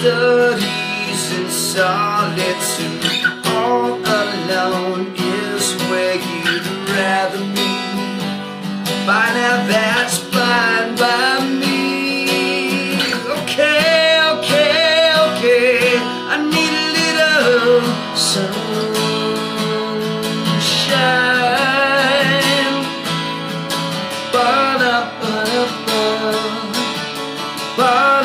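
A man singing and strumming an acoustic guitar, a live solo performance. His voice swells and wavers on strong held notes about halfway through, over the steady strummed chords.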